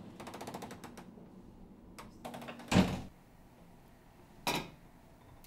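A room door being shut: a quick run of clicks for about a second, then a loud thud about halfway through, and a shorter knock near the end.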